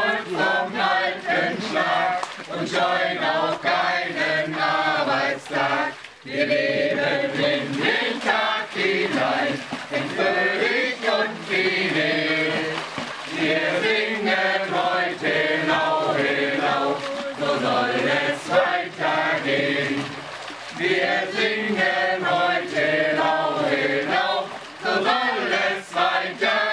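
A group of voices singing a song together, with two brief breaks between phrases, about six seconds in and again about twenty seconds in.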